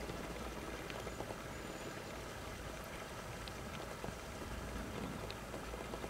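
Steady outdoor background hiss, with a few faint, very short high ticks scattered through it.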